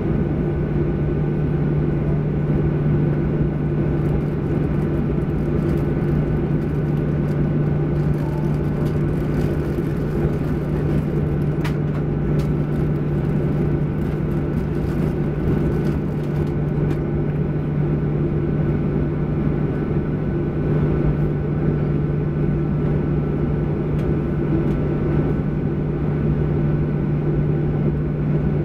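Steady low drone with a faint whine inside the cabin of a parked Boeing 737-800 before engine start: the air-conditioning fed by the auxiliary power unit, with a faint click about twelve seconds in.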